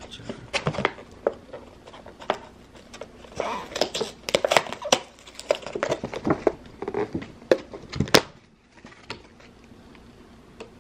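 Clear plastic clamshell container crackling and clicking as it is handled and its lid pried open, with a sharp snap about eight seconds in.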